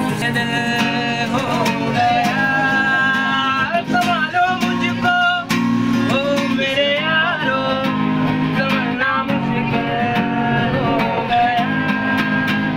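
Acoustic guitar strummed in a steady rhythm, accompanying a man singing a melody.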